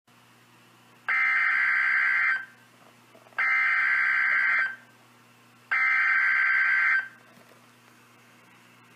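Emergency Alert System SAME header from NOAA Weather Radio: three identical bursts of shrill, warbling digital data tones, each a little over a second long and about a second apart, encoding the start of a tornado warning. A faint steady hum lies underneath between the bursts.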